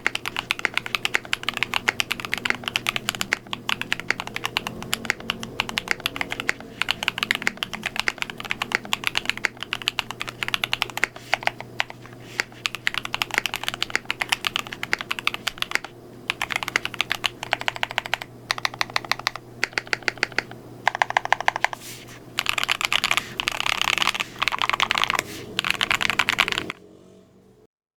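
Mechanical keyboard typing: a KBDfans Tofu65 aluminium tray-mount keyboard with lubed Akko CS Piano switches, fast continuous keystrokes. From about two-thirds of the way in, the typing comes in dense short runs, then stops just before the end.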